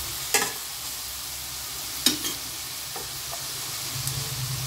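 Chopped onions and green chillies sizzling in sesame oil in a kadai while a spatula stirs them, with a few sharp scrapes and knocks of the spatula against the pan.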